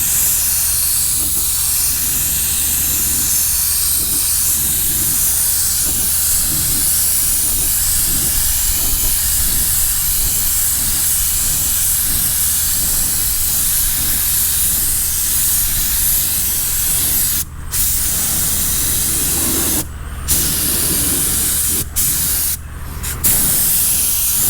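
Compressed-air spray gun hissing steadily as it sprays primer, stopping briefly four times near the end.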